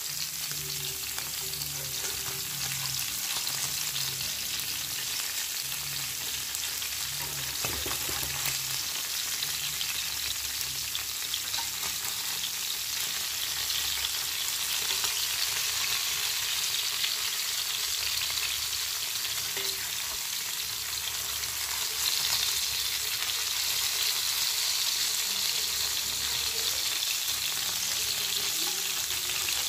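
Buthai (Indian oil sardines) shallow-frying in oil in a black iron pan on an induction cooktop: steady sizzling with scattered crackles, a little louder about three-quarters of the way through.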